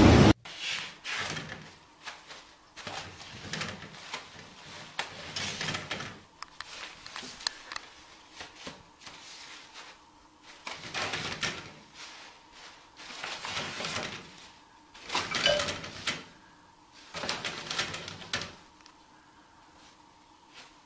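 A loud noisy sound cuts off about half a second in. A kitten then tugs and claws toilet paper off a roll, making irregular bursts of paper rustling and crinkling. One burst about 15 seconds in is louder than the rest.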